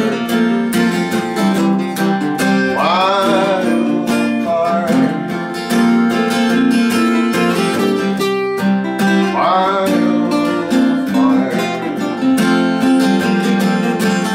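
Acoustic guitar strumming through an instrumental passage, with a lead melody line that slides in pitch about three seconds in and again near ten seconds.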